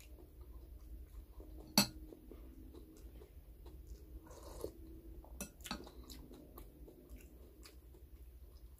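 Metal spoon and fork clinking against a glass soup bowl. There is one sharp clink about two seconds in and two more a little past halfway, with a soft sip from the spoon and faint chewing between.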